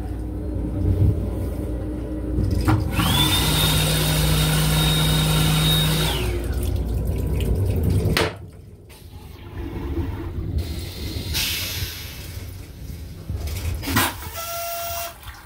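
Hand dryer in a Metro-North M7 railcar restroom's sink unit, its motor spinning up with a rising whine, blowing for about three seconds and winding down, over the train's low rumble. A click and a short beep come near the end.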